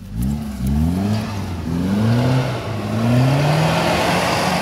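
UAZ Patriot off-road SUV's engine revving hard in repeated rising surges, close by and getting louder in the first second or two.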